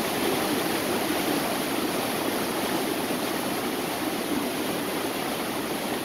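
Water of a small waterfall rushing steadily over rocks in shallow cascades, an even, unbroken rush.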